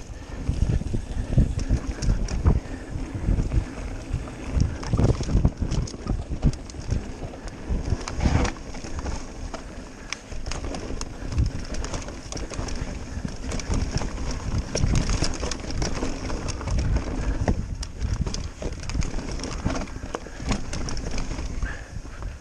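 Wind buffeting the microphone on a fast mountain-bike descent, with a steady low rumble of tyres on a dirt trail and frequent knocks and rattles from the bike over bumps.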